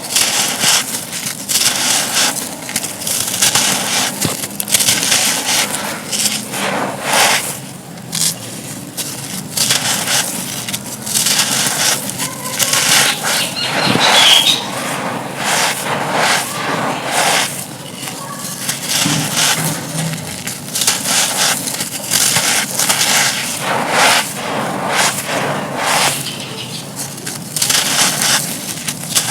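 Dry, brittle material being crumbled and crushed, crunching in many quick, irregular bursts.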